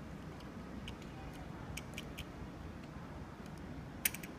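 Faint, scattered plastic clicks and ticks as a hand turns the thumb knob to tighten a plastic monitor bracket on a telescopic pole, with one sharper click about four seconds in.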